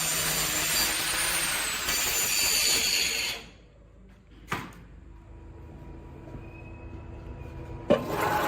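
A workshop power tool running with a steady high whine over a noisy rush, which stops abruptly about three seconds in. A single sharp knock sounds in the quieter stretch, and a loud clack brings the machine noise back near the end.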